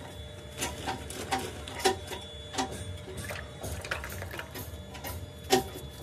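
Irregular light metal clicks and knocks, about one every half second to a second, over a steady machine hum.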